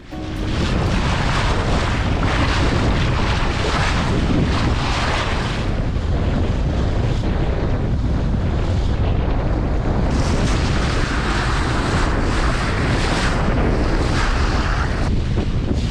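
Wind buffeting the microphone over the rush and splash of water along the hull of a Coco 6.50, a small Mini Transat sailboat under sail. The noise is loud and steady, swelling and easing as the boat meets the waves.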